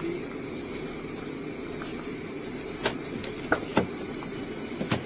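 A car's driver door is unlatched and pushed open: a few sharp clicks and knocks from the handle and latch in the second half, over a steady low hum.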